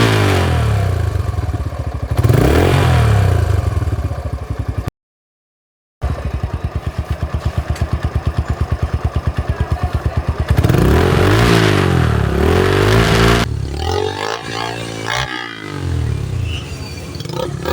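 Motorcycle fitted with an aftermarket exhaust, revved repeatedly with steady idling between the revs. The sound cuts out completely for about a second around five seconds in.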